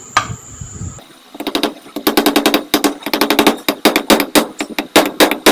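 Rubber mallet tapping an oil seal home into a Yamaha 125ZR aluminium crankcase half: a rapid run of blows, several a second, starting about a second in.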